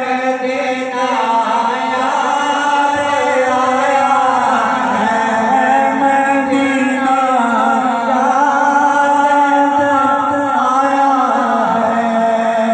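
Group of men chanting a slow devotional chant together in unison, with long held notes and no breaks.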